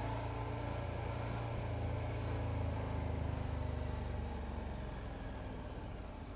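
KTM 1290 Super Adventure's V-twin engine running steadily under way, over a haze of wind and road noise. The engine note eases off a little in the last couple of seconds.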